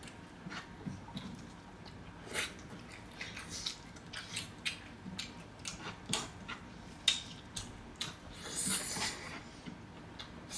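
Close-up eating sounds: chewing and wet mouth smacks with scattered sharp clicks, and a longer, noisier stretch of chewing near the end.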